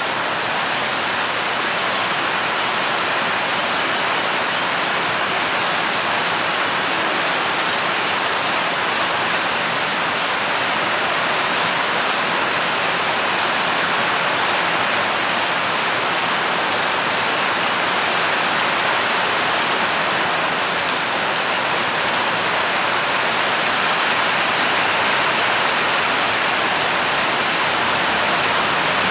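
Heavy rain falling on floodwater that covers a street: a steady, even hiss of drops splashing on the standing water.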